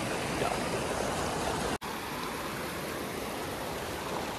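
Steady rush of a fast whitewater river. The sound drops out for an instant just under two seconds in.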